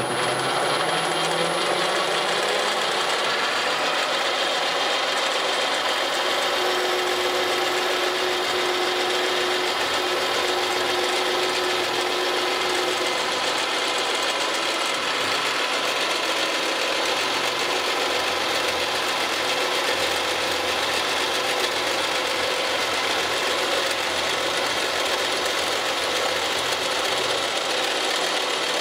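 Milling machine running, its end mill in a Jacob's chuck cutting a slot through a polypropylene block with a steady cutting hiss. A faint steady tone joins in from about six seconds in and stops around thirteen seconds.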